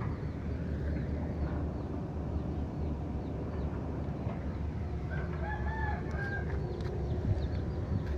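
A rooster crowing once, a single drawn-out call about five seconds in, over a steady low rumble.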